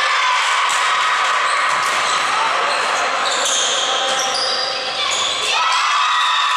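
Volleyball rally in a sports hall: the ball is struck and shoes squeak on the wooden floor, with short high squeaks about halfway through, over a steady murmur of spectator and player voices.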